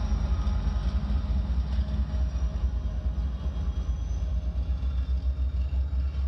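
Two Norfolk Southern diesel locomotives running as rear distributed-power units on a coal train pass by and move away. Their engine sound drops off about two seconds in, leaving a steady low rumble.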